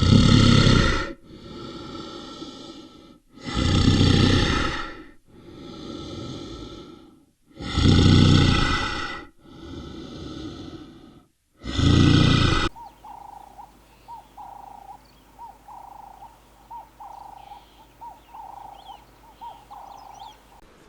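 An animal's loud rasping breaths: four heavy exhales, each followed by a quieter intake, repeating about every four seconds. They stop about two-thirds of the way through, and faint short chirps follow, evenly spaced at about two a second.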